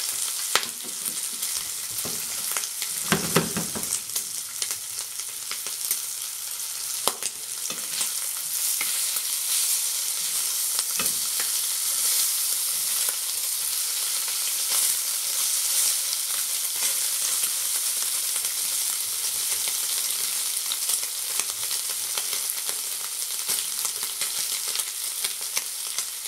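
Streaky bacon rashers sizzling steadily in a hot frying pan, with scattered clicks and a few knocks, the largest about three seconds in, as the rashers are turned with tongs.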